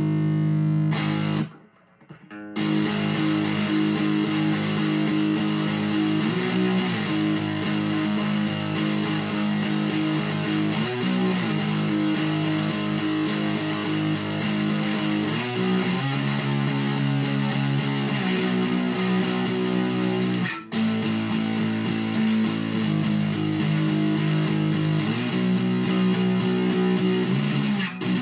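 Amplified electric guitar, miked amp sound, playing sustained chords that change every few seconds. The sound drops out briefly about two seconds in and cuts off for an instant about twenty seconds in.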